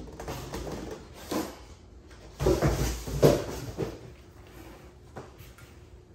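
Cardboard box and packaging being handled: irregular rustling, scraping and knocks, loudest in a cluster about two and a half to three and a half seconds in.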